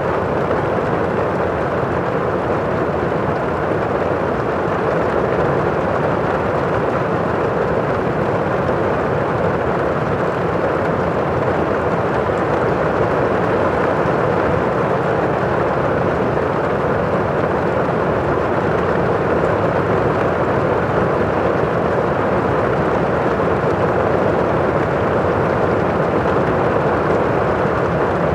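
Heavy rain falling on a roof, heard from inside the house: a steady, muffled rush that never lets up.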